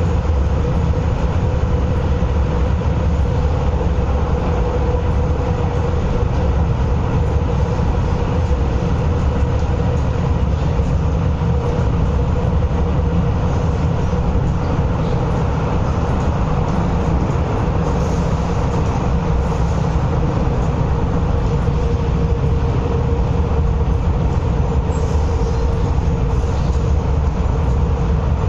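Inside an MTR East Rail Line MLR electric train carriage: the steady rumble of the train running along the track, with a constant hum over it and no change in pace.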